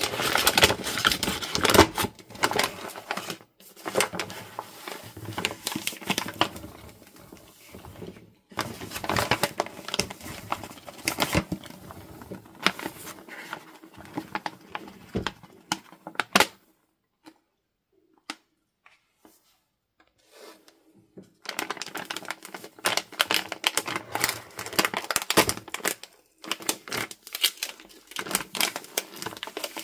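Plastic corn starch bag crinkling and crackling in the hand as the starch is shaken out of it into a bowl. It comes in crackly bursts, with a break of several seconds past the middle.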